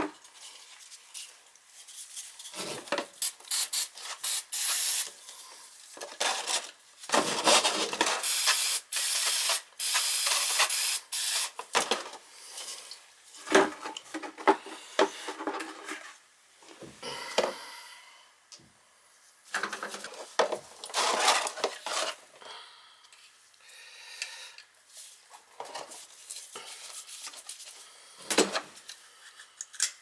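Metal parts of a Beckett oil burner's nozzle line and electrode assembly scraping, rubbing and clattering in a metal pan as they are cleaned. Hissing bursts of aerosol carburetor cleaner spray come about eight seconds in.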